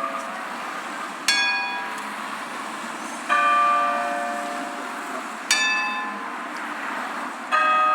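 A deep tower bell, Big Ben, and a higher, brighter hand bell answering it strike in turn about every two seconds, each stroke ringing out and fading: four strikes in all, high, deep, high, deep.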